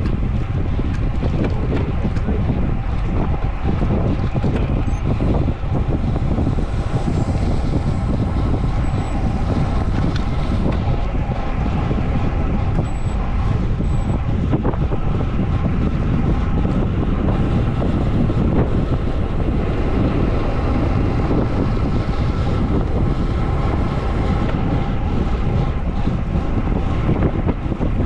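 Wind noise buffeting the microphone of a rider-worn camera on a road bike going downhill at speed, a steady low rumble and rush of air.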